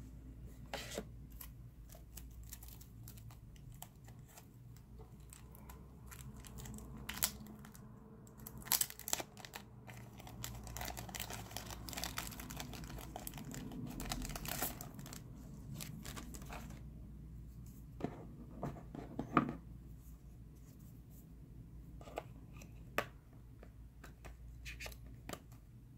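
Thin plastic wrapping around a phone battery crinkling and tearing as it is unwrapped, loudest in the middle, with scattered sharp clicks and taps as the battery is handled and fitted into the phone's battery compartment.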